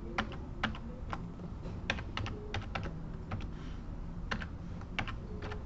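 Computer keyboard keys clicking in an irregular run of separate keystrokes as shortcuts and numbers are typed, with undo pressed several times in a row and then extrude.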